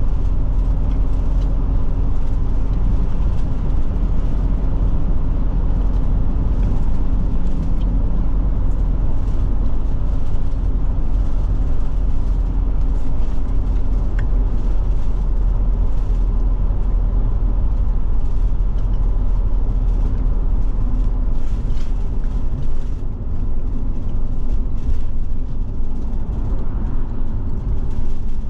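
Forest River Forester Class C motorhome driving at highway speed: a steady engine drone with road and tyre noise, heard from inside the cab.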